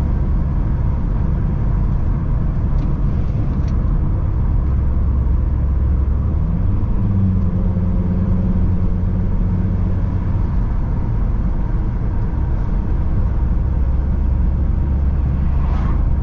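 Car driving on the road, its engine and tyre rumble heard from inside the cabin, the engine note shifting about six or seven seconds in.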